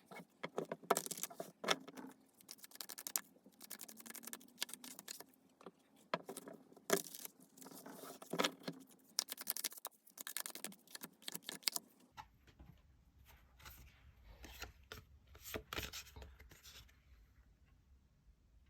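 Tarot cards being shuffled and handled: a rapid patter of card clicks and scrapes. After about twelve seconds it thins to sparser card sounds over a low hum.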